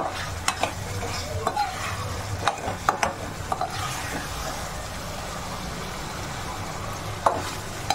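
Perforated steel spoon scraping and clinking against a steel kadhai while stirring gatte in masala frying in oil, over a steady sizzle. The clinks bunch up in the first four seconds, then one more comes near the end.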